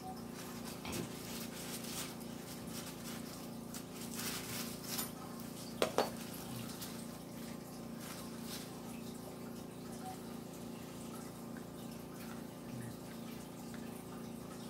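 Steady background hum and hiss with a few faint rustles. About six seconds in come two sharp clicks in quick succession.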